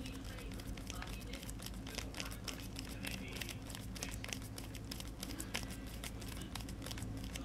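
Irregular small clicks and crinkling of hands handling RC car parts and small hardware, over a steady low hum.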